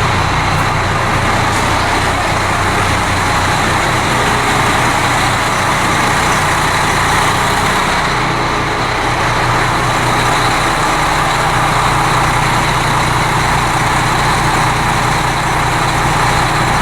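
A motor vehicle's engine running steadily with a low, even throb under broad, constant noise.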